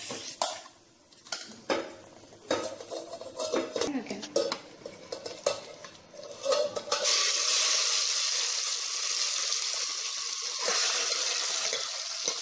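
A spoon clinks and scrapes against steel for several seconds. About seven seconds in, a steady sizzle starts suddenly and takes over: yogurt-marinated mutton frying as it hits hot ghee in a steel pot.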